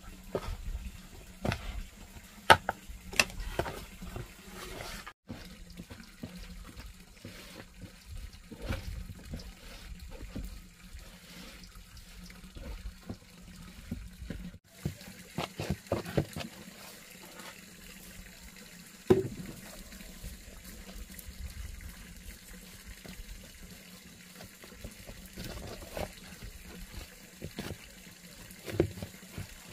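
Water splashing and trickling, as in washing by hand at a tap or basin, with scattered sharp knocks.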